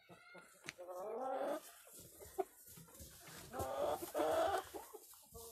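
Light Brahma chickens calling: two drawn-out calls, one about a second in and a longer one near the four-second mark.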